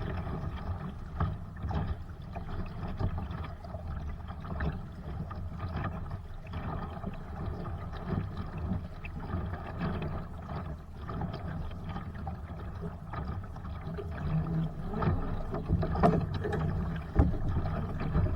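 Water rushing and splashing along the hull of a Sunfish sailboat under way, with an uneven low rumble throughout and a few louder splashes near the end.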